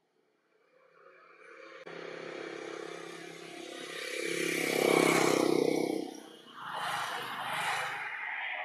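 A motor vehicle passing: engine noise swells to a peak about five seconds in, then fades, followed by a second, quieter rush of noise.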